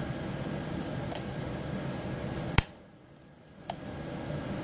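Key being worked back and forth in a Master Lock pin-tumbler padlock to show the play in the plug. There is a sharp metallic click about halfway through and a fainter click near the end, over a faint steady hiss.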